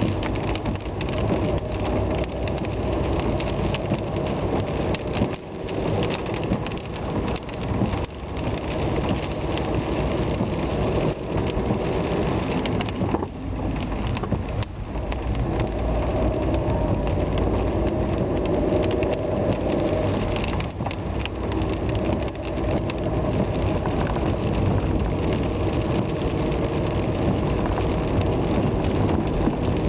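A vehicle driving in heavy rain: a steady wash of rain and wet-road noise, with the engine's note faintly rising and falling underneath and a few brief dips in level.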